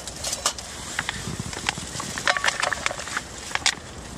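Handling noise from a plastic water bottle: irregular clicks, taps and crinkles as it is turned over in the hands, with a cluster of quick clicks in the middle.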